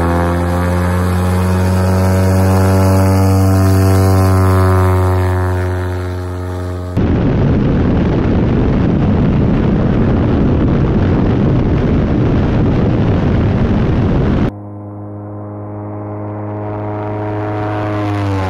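Forpost-R drone's piston engine and propeller running with a steady, even-pitched drone. About seven seconds in it gives way to a loud rushing noise of wind and propeller heard from on board the aircraft. The engine tone returns and grows louder as the drone takes off and passes, dropping in pitch near the end.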